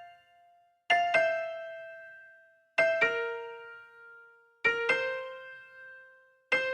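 Intro music: soft electric-piano notes struck in three pairs, each left to ring and fade, with a fuller passage starting at the very end.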